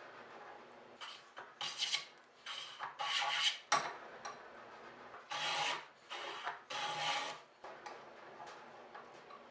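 A file scraping back and forth across a wooden hammer handle clamped in a vise: about seven scratchy strokes of uneven length, with one sharp knock a little under four seconds in as the handle is shifted in the vise jaws. The strokes stop shortly before the end.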